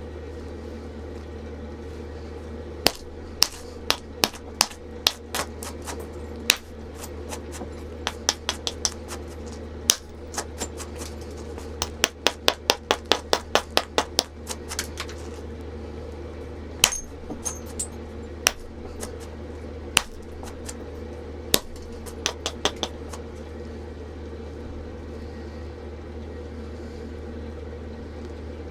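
Flintknapping: a percussor striking a stone nodule in sharp, ringing knocks, roughing out a biface by taking off its outer rind. The knocks come singly and in quick runs, about five a second at their busiest, over a steady background hum.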